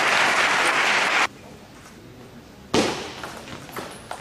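Crowd applauding in a large sports hall, cut off abruptly about a second in. After a quiet gap comes a single sudden loud thump, then a few sharp clicks of a table tennis ball on bat and table near the end as a rally begins.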